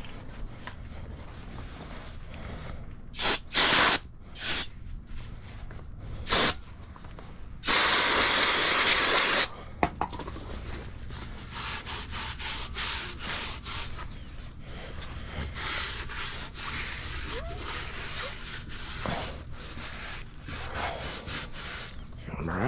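Aerosol brake parts cleaner sprayed into a brake drum: four short blasts, then one long spray of about two seconds. After that comes a paper towel rubbing and scrubbing around the inside of the drum to clear out grease, since the braking surface must be free of grease or oil.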